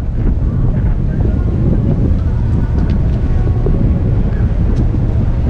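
Steady low rumble of a passenger ferryboat under way, with wind buffeting the microphone.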